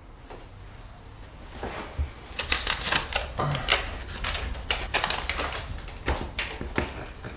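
A quick, irregular run of sharp clicks and rattles, starting about a second and a half in and lasting most of the way through: a front door's lock and latch being worked as the door is unlocked and opened.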